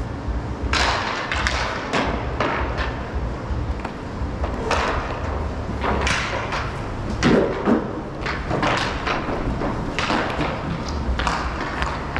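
Roller hockey play heard up close: inline skate wheels rolling on the rink floor under a run of sharp knocks and thuds from sticks and puck.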